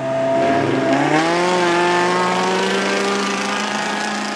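Honda Civic hatchback launching on a dirt drag strip: the engine note dips as it leaves the line, then climbs steadily as the car accelerates away.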